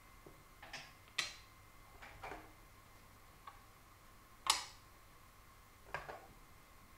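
Sharp clicks of wooden shogi pieces being moved and set down on a wooden board, the loudest about four and a half seconds in, followed by a press on the digital game clock's button about six seconds in.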